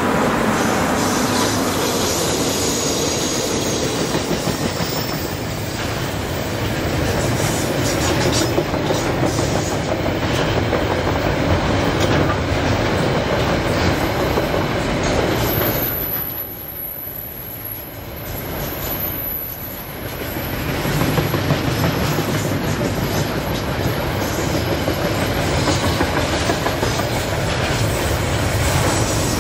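Long freight train's wagons rolling past with a steady rumble and the clickety-clack of wheels on the rails. The sound dips for a few seconds about two-thirds of the way through, and a thin high whine runs for several seconds around the middle.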